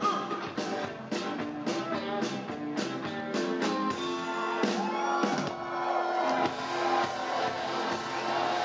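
Live rock band playing electric guitar and drum kit, with fast, even strokes through the first half. About halfway through there are notes that slide in pitch, and then the sound fills out into a denser wash.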